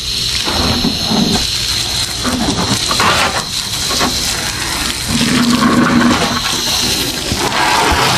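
Water from a garden hose spraying onto a car, a steady rushing hiss as the car is soaked before washing.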